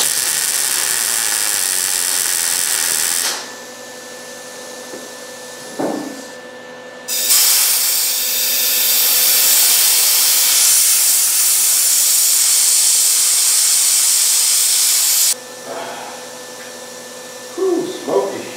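MIG welder arc crackling and hissing while plug-welding a 14-gauge bumper brace bracket through the trunk pan into the frame rail. It runs in two bursts, about three seconds, then after a pause a longer run of about eight seconds, each cutting off sharply.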